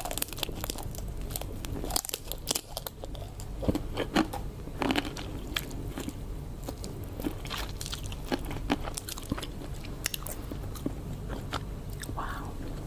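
Close-miked eating of giant prawns: irregular crunchy bites and chewing, with a crisp crunch every second or so.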